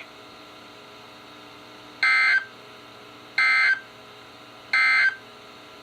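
Three short bursts of the warbling digital tones of a NOAA Weather Radio SAME End-of-Message code, about 1.4 seconds apart, heard through a weather radio's speaker. They mark the end of the flood warning alert. A faint steady hiss lies between them.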